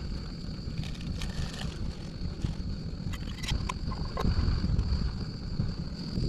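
Wind buffeting the microphone over water sounds from a kayak, with a few small knocks and a steady high thin tone.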